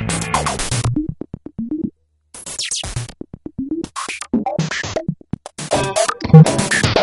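Edited electronic music and sound-effect collage: choppy synthesizer sounds with short gliding tones and rapid clicks. It drops out completely for a moment about two seconds in, then resumes.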